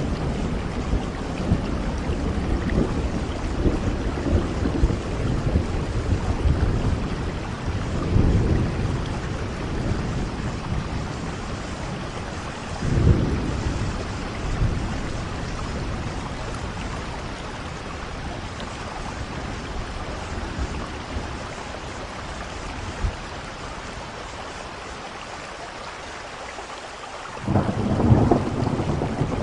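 Steady rain with rolling thunder. Low rumbles swell about 8 and 13 seconds in and die away over the following stretch, then a loud rumble returns near the end.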